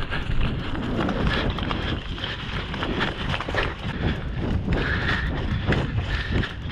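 Footsteps of a person moving quickly over dry grass and dirt, a dense run of irregular thuds, with wind buffeting the camera microphone.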